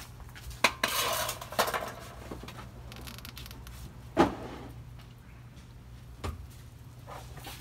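Metal clanking and clinking as a steel wheel cover and hub parts are handled and set down on concrete. There are a few separate knocks, with a short clatter about a second in and the sharpest knock a little after four seconds.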